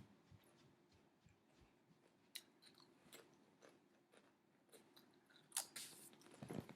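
Near silence broken by faint, scattered clicks and rustles, a few slightly louder ones near the end.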